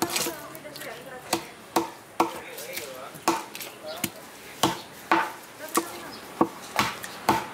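Cleaver chopping pieces of grouper on a chopping block: a steady run of sharp knocks, about two a second.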